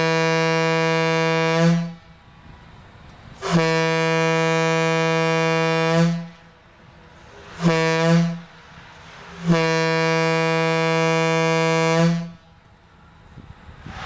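Leslie A200 bronze single-chime locomotive air horn sounding one steady low note with many overtones, blown in the grade-crossing pattern: long, long, short, long. The first long blast is already sounding at the start and stops less than two seconds in.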